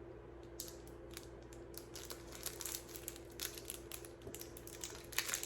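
Plastic packaging crinkling and rustling as it is handled and opened, in a run of short crackles that come thickest in the middle and again near the end.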